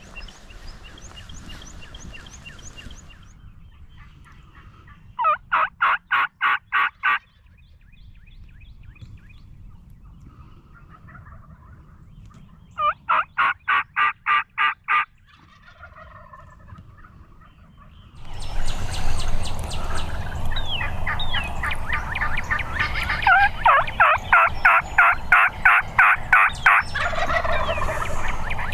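Turkey yelping: two runs of about eight evenly spaced yelps, each lasting about two seconds. A longer run of yelps follows near the end over louder background noise.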